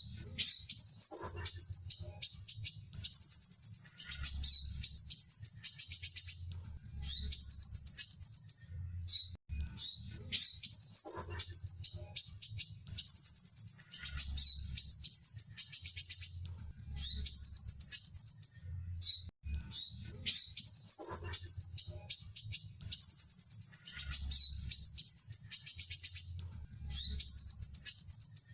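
A sunbird singing high, rapid trilling phrases one to three seconds long, repeated again and again with short pauses between them, over a faint low hum.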